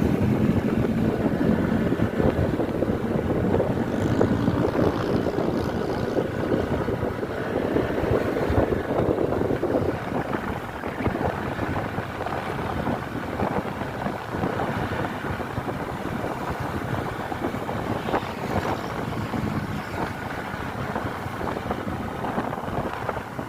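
Bus running by: steady engine and road rumble with wind buffeting the microphone, slowly fading.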